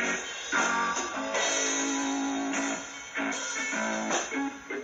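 Guitar music with strummed chords, played back from a cassette tape in a radio-cassette deck; the sound is thin, with little bass.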